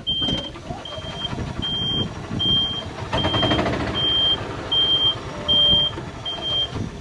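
Golf cart's reverse warning beeper sounding a steady series of short, high, evenly spaced beeps, a little more than one a second, as the cart backs up.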